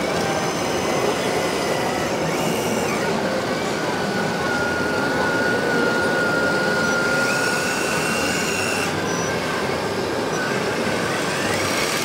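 Radio-controlled 1:8 scale construction vehicles running: a steady machinery din with a high motor whine that holds from about three seconds in, joined by a higher whine for a second or two near the eight-second mark.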